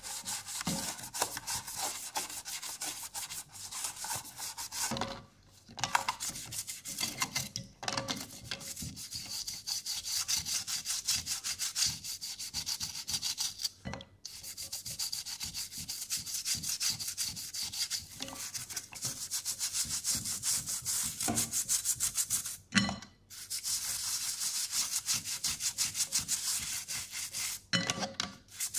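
Toothbrush scrubbing wet, soapy plastic and metal TV parts in quick back-and-forth strokes, with a few short pauses and light knocks as the part is turned.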